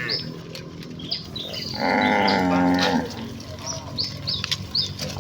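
Cattle mooing: one long, loud moo about two seconds in that lasts about a second, with the tail of another moo at the very start.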